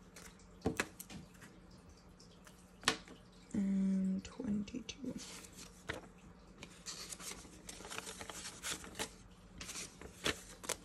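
Paper banknotes being counted and flicked through by hand: crisp rustles and snaps of the bills, busier in the second half. A brief hum from a person's voice about four seconds in.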